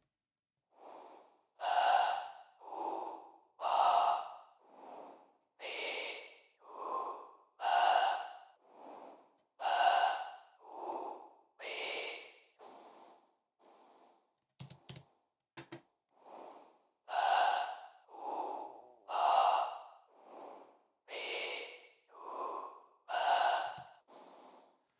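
Synthesized breathing: signal-generator noise shaped into vowel-like puffs by a gate and filters, with its low end EQ'd out, and fed into reverb. The breaths come about one a second, alternating a louder and a softer one. It breaks off briefly around the middle with a few short clicks, then resumes.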